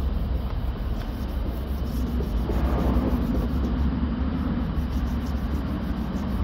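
A sanding pad rubbed by hand across the painted door panel of a car, scuffing along the surface, over a steady low rumble.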